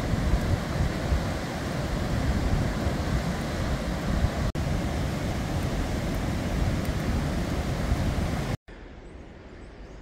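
Steady rushing of a mountain stream and waterfall, mixed with wind buffeting the microphone. About eight and a half seconds in it cuts off suddenly to a much quieter outdoor background.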